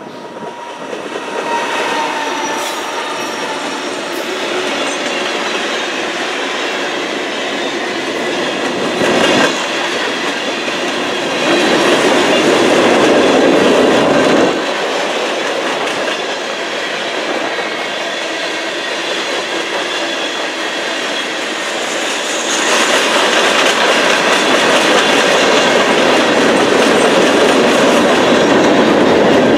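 Norfolk Southern diesel freight train passing close by. The locomotives come up and go by in the first seconds, then a long string of empty ballast hopper cars rolls past, wheels clattering over the rail joints with a thin high squeal from the wheels. It is louder for a few seconds in the middle and again near the end.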